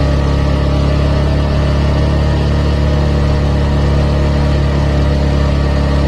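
Suzuki GSX-S150's single-cylinder engine through its stock exhaust, running at a steady pitch while the motorcycle cruises at constant speed.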